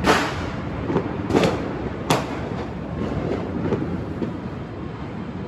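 Fireworks going off: three sharp bangs that trail off, just after the start, about a second and a half in and about two seconds in, with fainter pops over a steady background din.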